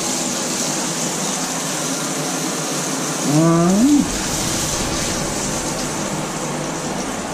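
Burger patties sizzling in a steel frying pan over a gas flame, a steady hiss. About three seconds in, a short voice sound lasting under a second that rises then falls in pitch.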